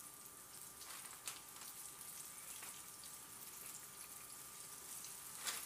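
Floured chicken strips sizzling in hot oil in a frying pan as they are laid in, a steady faint hiss with scattered sharp pops.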